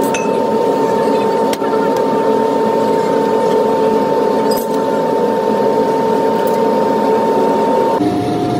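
Steady drone of a running motor with a constant whine, with a few sharp taps and scrapes as a metal bar strikes off the sand on a molding flask. The drone drops to a lower pitch near the end.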